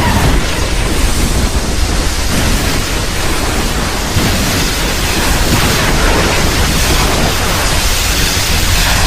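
Monster sound effect: a loud, steady rushing noise like static or a storm, with a deep rumble underneath and no clear pitch. It starts suddenly and holds for the whole stretch.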